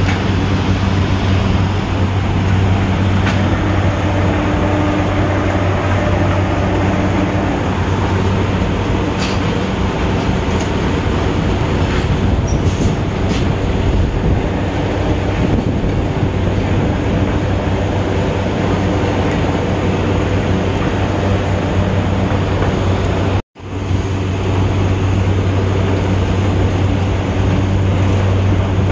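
Loud, steady din of heavy sugar-mill machinery with a deep, constant hum and a few faint clicks. It cuts out for an instant about three-quarters of the way through.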